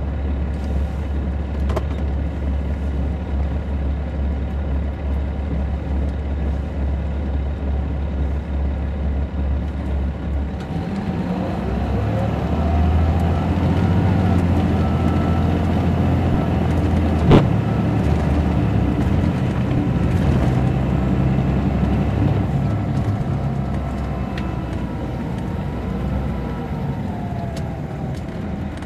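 Caterpillar C13 diesel engine of an MCI D4500CL coach, heard from inside the bus. It idles steadily, then about ten seconds in the bus pulls away and the engine note climbs in pitch as it accelerates, with a second climb later on and a single sharp click about halfway through.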